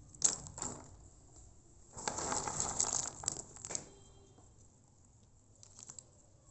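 Dried, split areca nuts clattering as a hand scoops through a heap of them and lets them fall: a sharp click near the start, a longer rattle in the middle, and a few faint clicks near the end.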